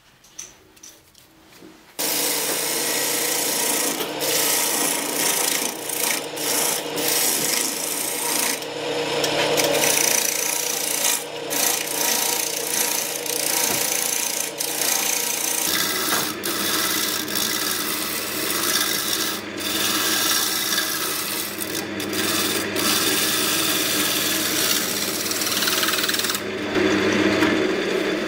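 A gouge cutting a spinning silverberry blank on a JET JWL-1443 wood lathe: a continuous scraping, shaving noise over the lathe's steady hum. It starts about two seconds in, and the hum drops lower about a third of the way through.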